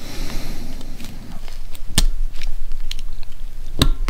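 Handling noise and sharp clicks as a snap ring is worked into the bore of a Honda Goldwing GL1500 rear brake master cylinder with a pick, to hold the piston in. Steady rustling with a few clicks, the loudest about two seconds in and another just before the end.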